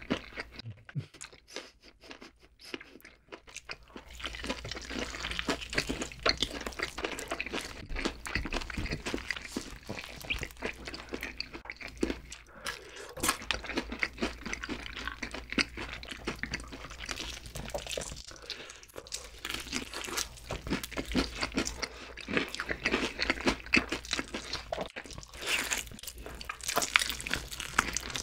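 Close-miked crunching and chewing of Korean fried chicken, sauced yangnyeom and cheese-powdered Bburinkle, with many small crackles of the crisp coating. Sparser for the first few seconds, then steady.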